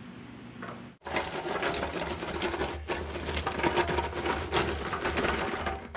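Harbor Freight Badland 3-ton off-road floor jack rolling on its large wheels across loose gravel, stones crunching and rattling under it in a dense, uneven clatter. It starts suddenly about a second in, after a low steady hum, and briefly lets up midway.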